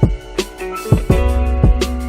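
Background music: a song with guitar and a steady drum beat.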